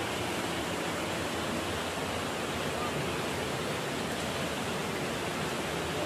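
Steady rushing of a small waterfall and the stream pouring over rocks.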